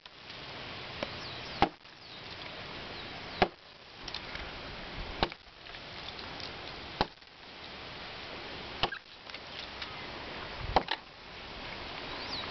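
An axe chopping into a fallen ceibo log. Six heavy blows come at an even pace, about one every two seconds, each a sharp knock of steel biting into wood.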